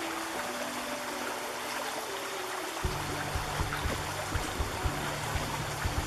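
Shallow river rushing over rocks in a steady wash, with faint music-like tones drifting in pitch. About three seconds in, a low rumble with irregular thumps joins.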